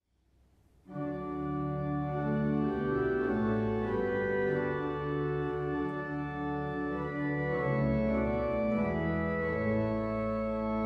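Organ playing a hymn introduction: slow, sustained chords that start about a second in.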